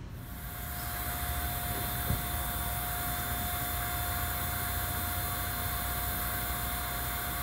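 Propane dispenser filling a cylinder: a steady hiss with a steady mid-pitched whine over a low rumble, and a single knock about two seconds in.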